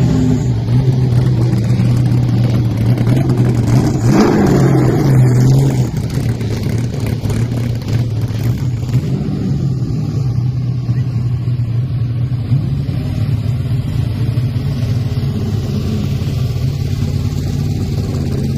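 Car engine idling steadily, with a brief rise in revs about four seconds in before it settles back to idle.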